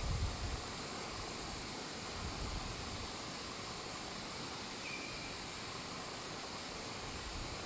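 Steady, even outdoor background hiss, with a low rumble of wind on the microphone that dies away in the first half second. A single faint, short high note about five seconds in.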